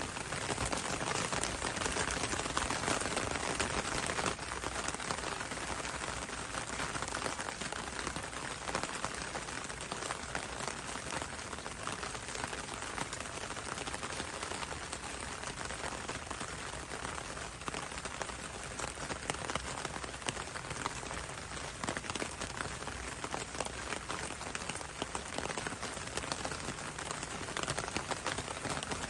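Steady rain falling on leafy foliage, a dense patter of many drops without a break.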